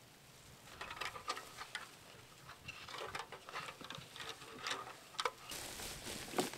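Dry hay rustling and crackling in irregular small clicks as hands pack and tuck it around a drying pole. Near the end it changes to a steadier scraping rustle of a wooden hay sledge being dragged over grass.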